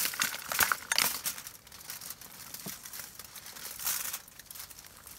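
Aluminium foil crinkling as mussels in their shells are tipped onto it from a bowl and pushed around by hand. A few sharp clicks of shells knock together. It is loudest as they are poured, then quieter rustling follows, with one more brief crinkle about four seconds in.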